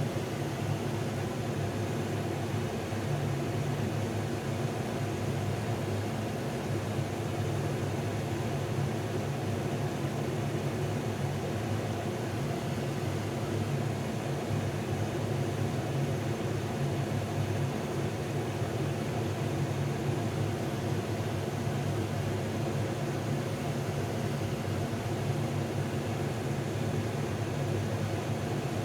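Truck engine idling with a steady, unchanging low hum.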